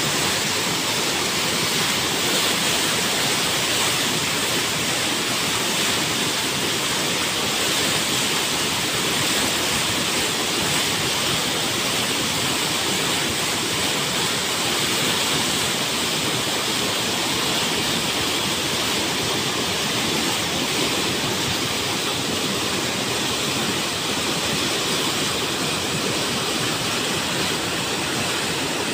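Flash-flood torrent of muddy water rushing down a riverbed: a steady, unbroken rushing noise.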